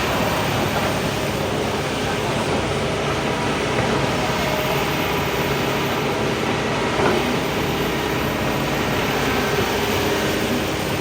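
Heavy excavator working: steady engine and machinery noise, with a brief knock about seven seconds in.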